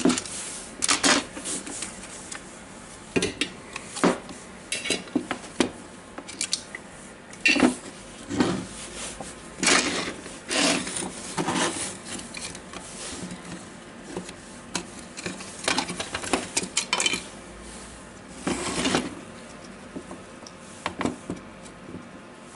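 Parts of a Makita DDF456 cordless drill being handled: the plastic housing halves, switch and wiring click, tap and clatter against each other and the wooden tabletop in irregular knocks.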